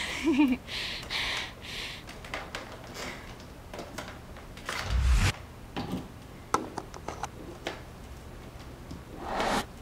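Handling noise as an upright vacuum cleaner's power cord is unwound and its plug pushed into a wall outlet: scattered clicks and rustles, with a low thump about five seconds in and a short hiss near the end.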